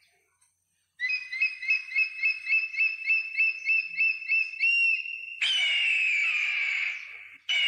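Bald eagle calling: a rapid chatter of high, piping notes, about four a second, ending on a held note. Then a long, hoarse, falling scream about five and a half seconds in, and another starting just before the end.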